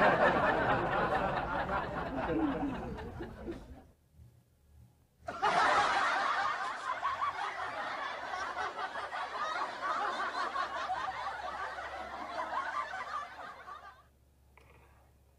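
Laughter that fades out about four seconds in, then after a short pause starts again abruptly and cuts off suddenly near the end.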